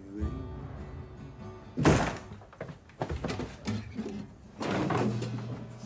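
Acoustic guitar notes ringing, cut off about two seconds in by a loud sudden bang, followed by scuffling thumps and rustling as one man grapples with another on a bed.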